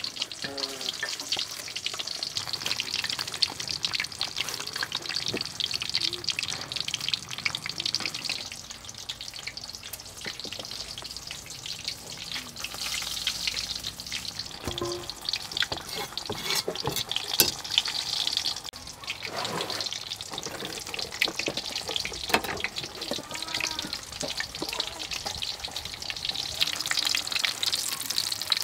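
Whole fish frying in hot oil in a wok: a steady sizzle with many small crackling pops.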